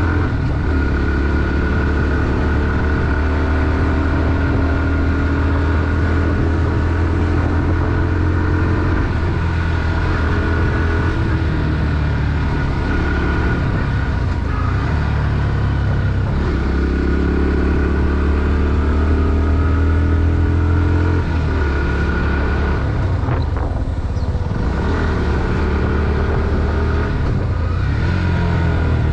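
Bajaj Pulsar NS160's single-cylinder four-stroke engine running under load as the bike is ridden, its pitch rising and falling with the throttle and dropping at gear changes, twice in the middle stretch.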